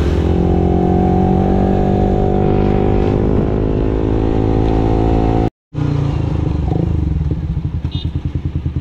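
Sport motorcycle with a Corsa Platinum R93 exhaust, running at a steady cruise. After a brief cut in the audio about five and a half seconds in, it runs at low revs with a rapid, even exhaust beat as it slows.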